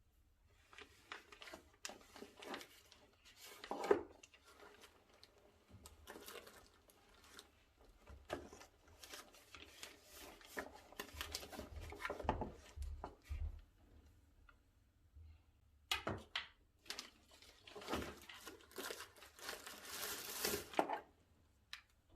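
Packaging being unpacked by hand: irregular rustling and crinkling of wrapping, with occasional sharp knocks and a denser stretch of crinkling near the end.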